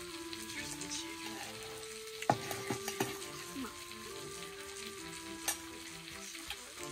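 A slow melody of held notes over a steady hiss, with a few sharp metallic clinks of a spoon against a stainless steel bowl, the loudest about two seconds in and others near three and five and a half seconds.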